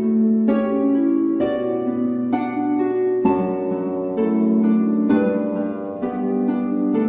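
Background music: slow plucked notes, about one a second, over held lower notes.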